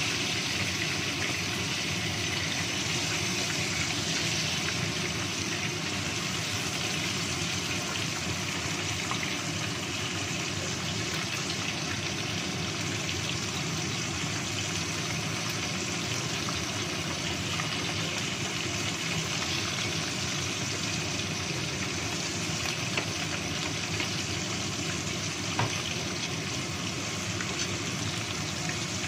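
Whole tilapia frying in hot oil in a wok, a steady sizzling hiss, with a couple of faint clicks near the end.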